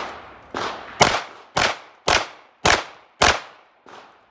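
A pistol fired in a quick string of about eight shots, roughly two a second; the last shot is fainter.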